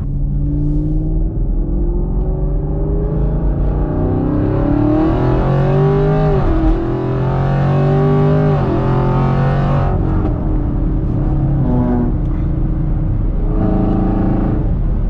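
Chevrolet Camaro SS 6.2-litre V8 through a Borla ATAK exhaust, accelerating hard. The pitch climbs, drops at a gear change about six and a half seconds in, climbs again and drops at a second change about two seconds later, then settles into a steadier cruise. Light pops follow the lift-off, which the driver calls backfiring.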